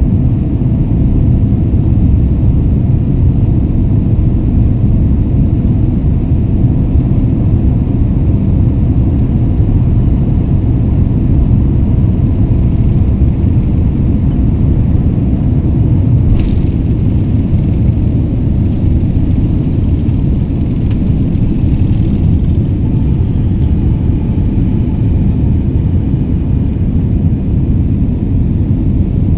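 Jet airliner taking off: a steady, deep rumble of engines and rushing air, with a brief click about halfway through.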